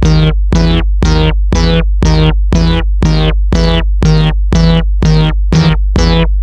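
Japanese railroad crossing warning bell ringing its repeated ding about twice a second, each stroke a short ringing tone. It plays over a steady low synthesizer bass drone as part of an electronic music track.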